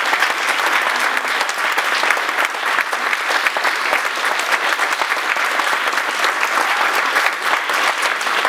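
Audience applauding steadily: many hands clapping at an even level throughout.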